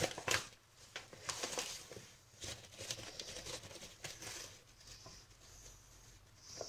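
Soft, irregular rustling and crinkling of a flour bag as wheat flour is scooped out with a decilitre measure and tipped into a mixing bowl.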